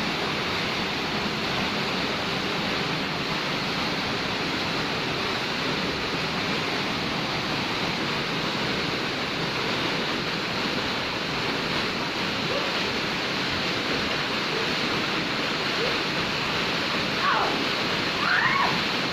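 Waterfall rushing steadily. Near the end two short gliding cries rise above it.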